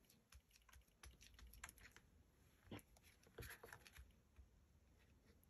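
Near silence with faint, scattered light taps and rustles of paper and lace trim being handled and pressed down on a craft board.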